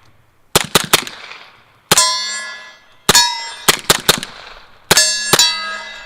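About nine suppressed 9 mm pistol shots from a CZ Scorpion Evo with a Dead Air Ghost-M suppressor in its short K configuration, firing subsonic 147 grain rounds. They come in quick bunches, several followed by the clear ringing of a steel target being hit.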